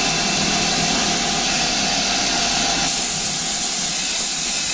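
Compressed-air mist coolant sprayer hissing steadily onto the lathe work.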